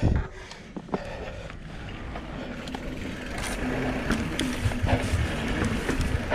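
Specialized Turbo Levo e-mountain bike rolling over stone paving: tyres on stone, clicks and rattles from the bike, and low thumps as the wheels hit joints and bumps. A knock comes right at the start, and wind noise on the microphone grows louder as it gathers speed.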